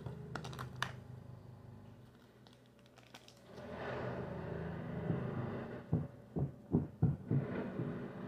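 Aluminium foil crinkling and rustling as it is handled. There are a few clicks at the start and a cluster of sharp knocks against the table near the end.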